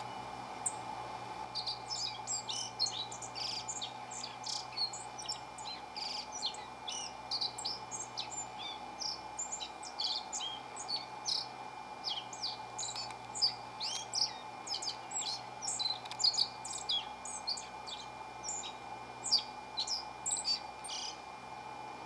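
Male black-faced bunting singing: a long, unbroken run of quick, high twittering notes that starts about a second in and stops shortly before the end.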